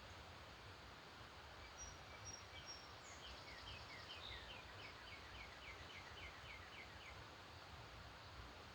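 A songbird singing faintly over a steady hiss: a few short high notes, then a run of quick, evenly repeated down-slurred notes, about three a second, that stops about seven seconds in.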